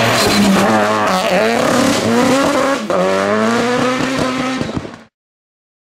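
Turbocharged 1,155 cc four-cylinder engine of a Citroen Saxo hill-climb car at full throttle, climbing in pitch as it accelerates past and away, with an upshift about three seconds in. The sound cuts off suddenly about five seconds in.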